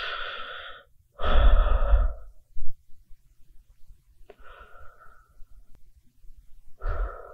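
Close-miked human breaths, one after another. A breath fades out in the first second, a loud one with a low rumble of air on the microphone comes about a second in, a softer one comes about four and a half seconds in, and another starts near the end.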